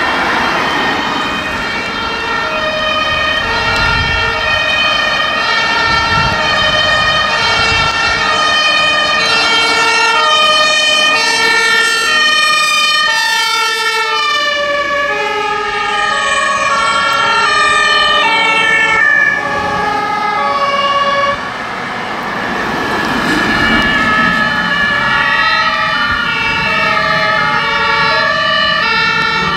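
Several German emergency-vehicle two-tone sirens (Martinshorn) sounding at once, each alternating between a high and a low note, the different sirens overlapping out of step, with vehicle engines rumbling underneath.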